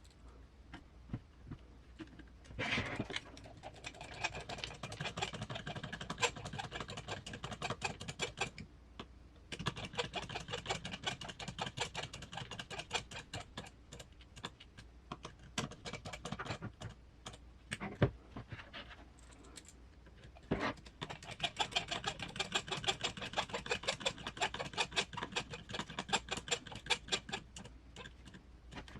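Rapid runs of small clicks from a driver turning screws that fasten the transmission to an RC crawler's chassis, in three stretches of several seconds each, with a single sharper knock in between.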